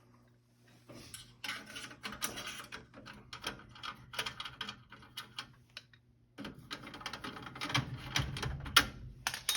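Rapid, irregular scratching and clicking of a furnace flame sensor rod being scrubbed clean with an abrasive, with a short pause partway through. Cleaning off a dirty flame sensor, the cause of the gas furnace not staying lit. A faint low hum runs underneath.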